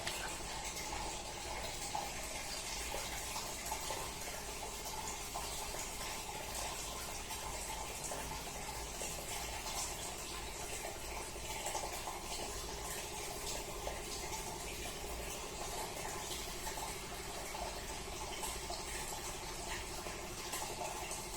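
Sanyo top-loading pulsator washing machine in its spin-dry cycle: the spinning tub runs steadily with a rushing of water being flung off and drained, and a steady hum that grows clearer partway through.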